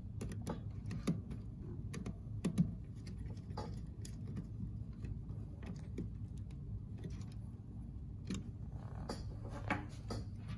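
Faint, irregular small clicks and scrapes of a tester screwdriver and wire being worked into the screw terminals of a thermostat base, over a low steady hum.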